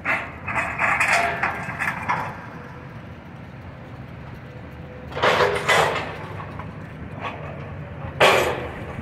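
Demolition rubble crashing and clattering as a track hoe breaks up and moves debris, in three bouts (a longer one at the start, one about five seconds in, a short loud one near the end), over a steady low rumble of engines.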